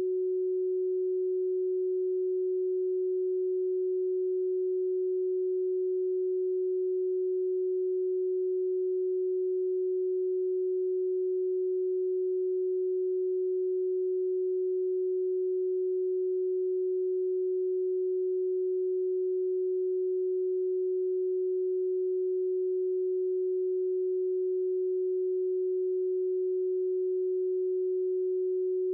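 A pure electronic sine tone holding one steady note at a medium pitch without a break: a generated Rife frequency.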